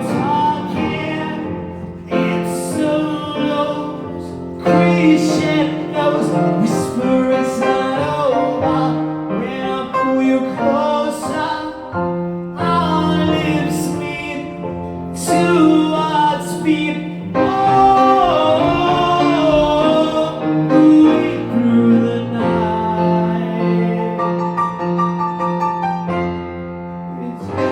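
Live band playing a rock ballad, with a sung vocal line and keyboard, and repeated cymbal hits.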